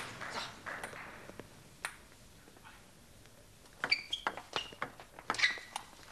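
Table tennis rally: the celluloid ball clicks sharply off bats and table in quick succession, starting about four seconds in after a near-quiet lull with a few scattered ticks.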